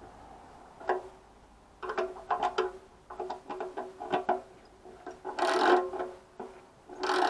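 Ratchet spanner clicking in short runs as it is swung back and forth, tightening the bolts of a motorcycle fuel tap on its tank, with a faster, louder run of clicks about five seconds in and another near the end.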